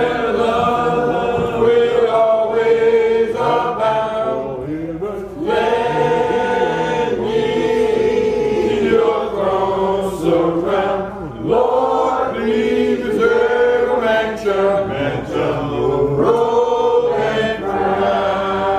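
Congregation singing a hymn a cappella in several voices, in long held phrases with short breaks between them.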